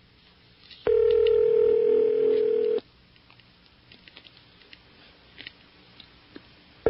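Telephone ringback tone heard over the line: one steady ring lasting about two seconds, a four-second gap, then the next ring starting at the end, the usual North American ringing cadence. The called phone is ringing and has not yet been answered.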